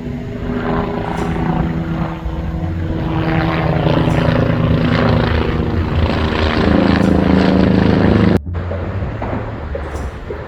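Diesel locomotive engine running with a steady, pitched sound that grows louder and then cuts off suddenly about eight seconds in.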